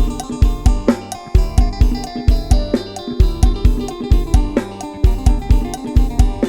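Isan Thai lai hae instrumental music: a sampled drum kit with a steady, driving kick and busy hi-hat, and a bass, under a quick plucked-string melody in phin style.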